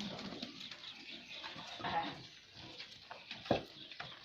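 Goats moving about, with scattered knocks and clatter. A short animal call, likely a goat, comes about two seconds in, and a louder thump follows later.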